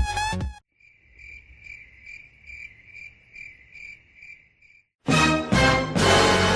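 Cricket chirping sound effect, the meme cue for awkward silence: a quiet, even train of short high chirps, about two and a half a second. About half a second in, a preceding clip cuts off, and at about five seconds a loud sound with stacked tones cuts in.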